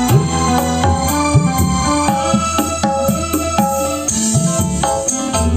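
Music with a steady percussive beat and low drum notes that bend in pitch, played loud through a car amplifier driving an 8-inch 300-watt speaker, 6-inch speakers and a 5-inch midrange.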